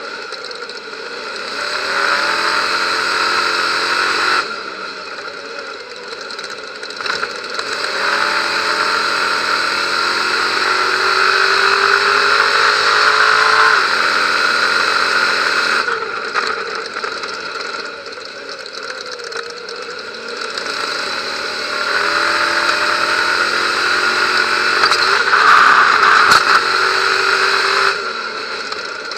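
Stadium Super Truck's V8 engine under full throttle, heard from inside the cab: its pitch climbs steadily as it accelerates and drops away sharply three times as the driver lifts for corners.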